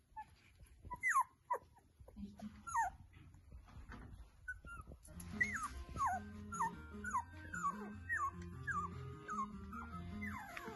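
Three-week-old puppies whimpering: short high squeaks that fall in pitch, a few at first, then a quicker run of about two a second in the second half. Background music comes in about two seconds in.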